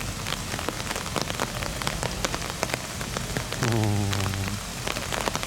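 Steady rain, with drops ticking sharply and irregularly close to the microphone. A short, low voice sound comes in for about a second, a little past halfway.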